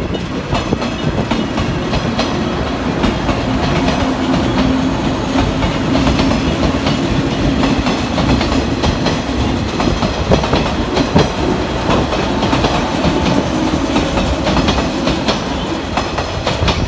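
JR West 113-series electric train running past, its wheels clattering over rail joints in quick irregular clicks over a low hum from the running gear.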